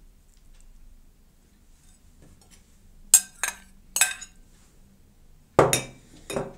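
A metal spoon clinks against glass bowls while meat is scraped out of a small glass bowl. There are three sharp clinks a little past three seconds in, then two heavier glass knocks near the end.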